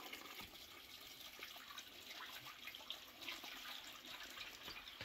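Faint thin stream of water running from a clay spout into a clay basin, with small splashes as hands wash vegetables in the water.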